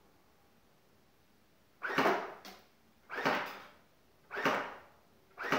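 Electric airsoft rifle (AGF FR 5.56 AEG) firing single shots on semi-automatic: four sharp shots about a second and a quarter apart, the first about two seconds in.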